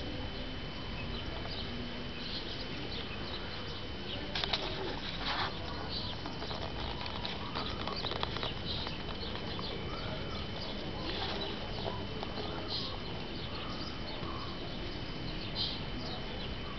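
Outdoor garden ambience: scattered short bird chirps and calls over a steady background hiss and low rumble, with a thin steady high whine throughout.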